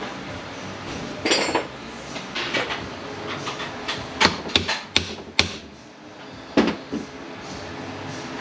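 Sharp metallic knocks and clinks of steel transmission parts and hand tools being handled on a workbench, with a rough scrape about a second in and a quick run of four knocks around the middle.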